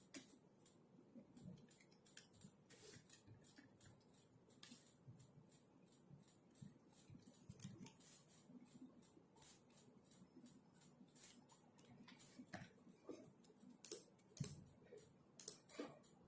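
Faint computer-keyboard typing: quick, uneven runs of soft key clicks, several a second, with a few heavier key strikes near the end.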